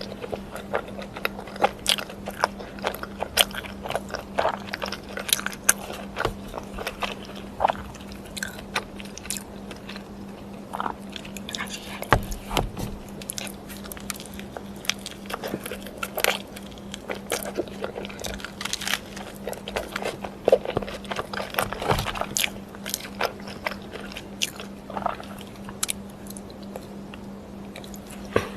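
Close-miked eating: crisp crunching bites and chewing, many sharp crackles coming irregularly throughout, over a faint steady hum.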